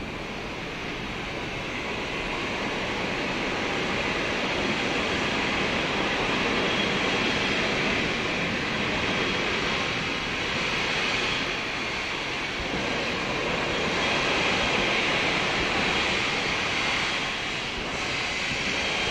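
Steam locomotive 34027 'Taw Valley', a rebuilt Bulleid West Country class Pacific, venting steam in a steady loud hiss that swells and eases slowly, with no chuffing beat.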